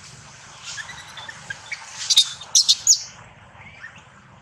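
Infant long-tailed macaque screaming in distress as its mother handles it roughly: a few faint squeaks, then about two seconds in a burst of four or five sharp, shrill cries within a second.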